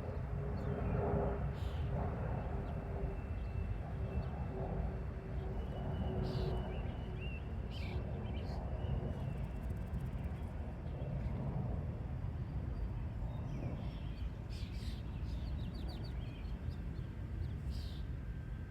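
Outdoor field ambience: a steady low rumble with scattered short clicks, a faint steady hum through the first half, and a few bird chirps near the end.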